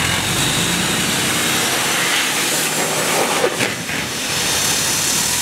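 Straight-piped 6.7 Cummins diesel running with its exhaust tip plugged by a bottle and balloon: exhaust gas hisses steadily out of the tip as the balloon fills.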